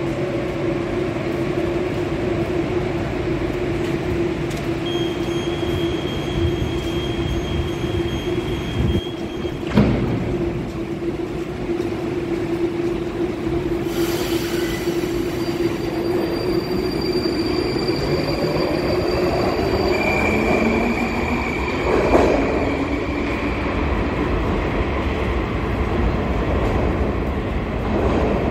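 81-725.1 'Baltiets' metro train at a platform: its equipment hums steadily while a high tone sounds for a few seconds, then the doors shut with a knock about ten seconds in. A hiss follows, and the train pulls away, its traction drive whining upward in pitch, with a clunk about 22 seconds in and rolling noise after.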